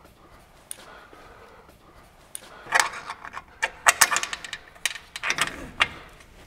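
Sharp clicks, clacks and rattles from an Alu-Cab Shadow Awning's arms and fittings being swung out and set in place. They come in a busy cluster from about two and a half seconds in until near the end.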